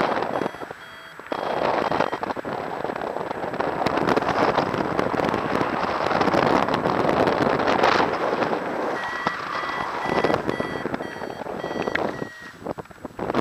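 Wind rushing over the microphone in paraglider flight. A variometer gives short, evenly spaced electronic beeps briefly about half a second in and again from about nine to twelve seconds, the tone it uses when the glider is climbing.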